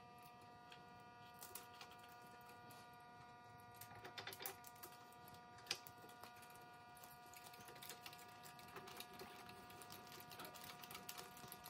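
Near silence: a faint steady hum, with faint scattered small clicks and ticks of a hand driver turning nuts onto the bolts of a rubber winch line stopper, one click a little louder about halfway through.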